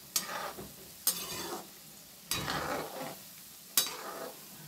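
Methi pakoras sizzling as they deep-fry in hot oil in a metal kadai, stirred with a slotted spoon. The spoon gives three sharp metal clinks against the pan, one near the start, one about a second in and one near the end, each followed by a swish of oil.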